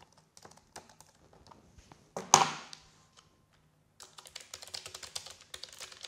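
Typing on computer keyboards. There are a few light keystrokes at first and a single louder sound about two seconds in. After a second of quiet comes a fast, even run of keystrokes on a Keychron K1 low-profile mechanical keyboard with tactile, non-clicky switches.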